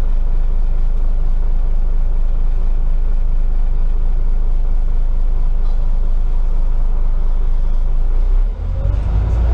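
Scania OmniCity double-decker bus engine idling steadily, heard from inside on the upper deck. About eight and a half seconds in the sound briefly drops, then the engine gets louder with a rising note as the bus pulls away.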